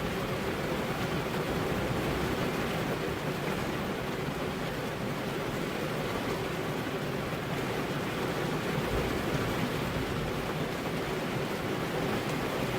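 Heavy rain falling on a car's window glass, a steady even hiss with no thunder.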